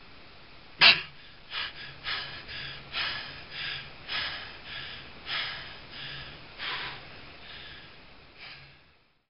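A man breaking a long static breath-hold: one sharp, loud gasp about a second in, then a quick run of heavy recovery breaths, about one every half second, slowly getting softer.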